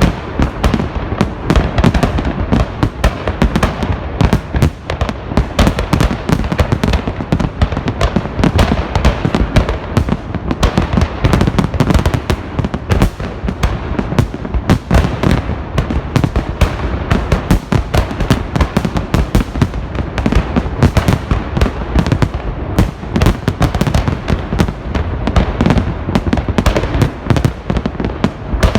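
A festive fireworks salute: a dense, continuous barrage of firework bursts, many bangs a second with no pause.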